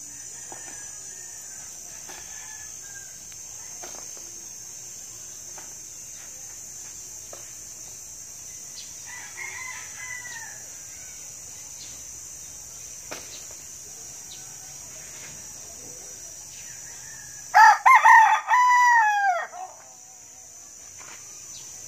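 Rooster crowing once, a loud cock-a-doodle-doo of about two seconds near the end, after a few soft, short calls earlier on.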